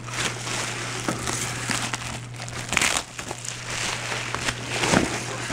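Plastic bubble wrap crinkling and crackling as it is handled and pulled off a packed item, in a steady run of crisp rustles.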